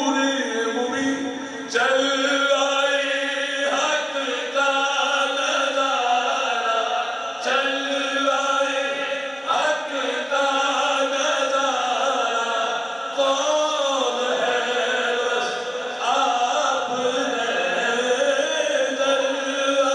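A man singing a naat, an Urdu devotional poem, solo into a handheld microphone. He holds long, ornamented notes in a chant-like melody, breaking between phrases every few seconds.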